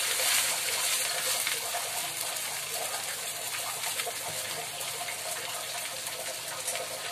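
Oil sizzling and crackling under a stuffed bread toast frying on a hot tawa, a steady hiss that eases off slightly after the toast goes in.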